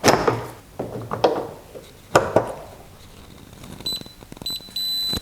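Several sharp knocks of hand tools on metal parts, then a high electronic beeping near the end: a few short beeps followed by a longer held beep.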